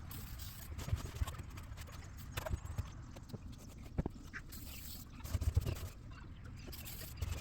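Scattered light knocks and low thumps at irregular intervals, typical of handling work on a vehicle part.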